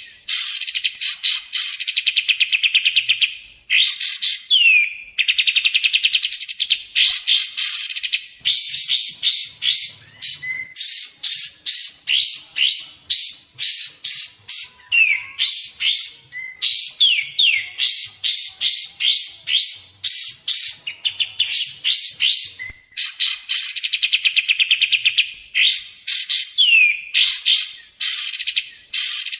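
Kapas tembak bird singing: phrases of fast, high chattering trills, some opening with a sharp downward-sliding note, broken by short pauses.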